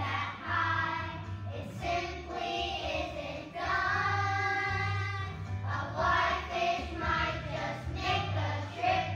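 A group of young children singing a song together with musical accompaniment, holding one long note about four seconds in.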